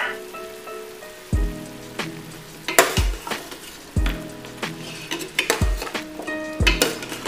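Pork and sliced radish sizzling in an aluminium pot while a metal ladle stirs and scrapes through them, over background music with a slow, regular beat.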